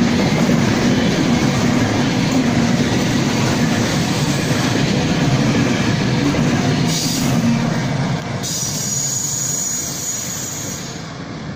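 Freight train of container wagons rolling past on the rails, a steady clatter of wheels that fades over the last few seconds as the end of the train goes away. A thin high wheel squeal sounds near the end as the train takes the curve.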